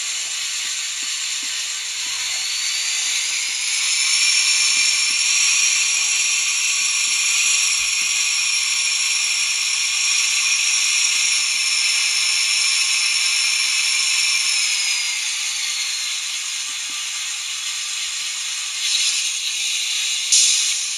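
Diesel engine sound from the sound decoder of a Minitrix N-scale ČD class 750 locomotive model, played through its tiny speaker so it sounds thin and hissy. The engine notches up with a rising whine a few seconds in, holds, and drops back about three-quarters of the way through. Near the end two short bursts mark the start of the engine-shutdown sound.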